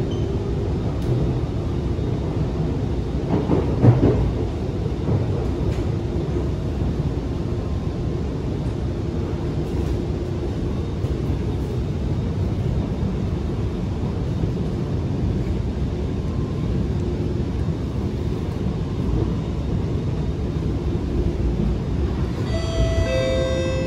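Inside the cabin of an Alstom Movia R151 metro train running on the line: a steady low rumble, briefly louder about four seconds in. Near the end, a short electronic chime of several tones sounds.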